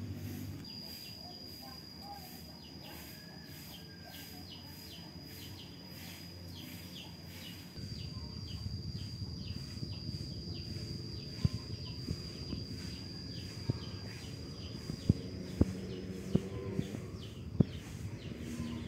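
Outdoor ambience: a steady high-pitched whine with faint short chirps repeating about twice a second. About eight seconds in a low rumble joins it, with a few sharp clicks near the end.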